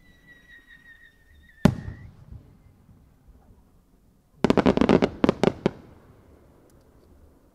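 Aerial fireworks shell: a whistle sliding slowly down in pitch is cut off by a single loud bang about a second and a half in. A few seconds later comes a quick volley of about ten sharp cracks, as a cluster of small multicoloured bursts from a multi-break shell goes off.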